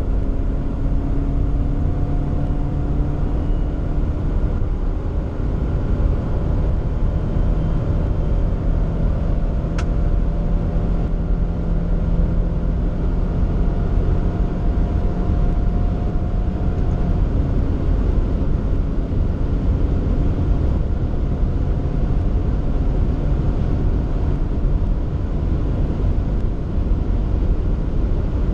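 Subaru XV's 2.0-litre four-cylinder boxer engine under full throttle at high speed, heard inside the cabin over steady wind and tyre noise. Its note rises slowly, then drops about two-thirds of the way through as the Lineartronic CVT steps from its fourth to its fifth simulated ratio.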